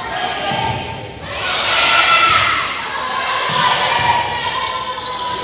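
Spectators and players shouting and cheering in a gym during a volleyball rally, loudest from about one and a half to three seconds in, with a few thuds of the ball being hit.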